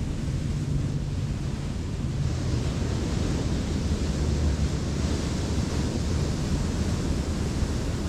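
Wind buffeting the microphone over the steady wash of ocean surf, a low rumble with a hiss that swells a little about two seconds in.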